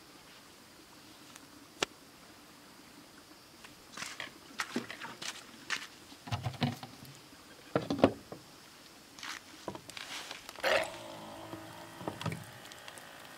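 Knocks, thumps and scrapes as a large plastic water jug is picked up and set down on gravel. Near the end the jug's top-mounted dispenser pump runs for about two seconds with a steady whir.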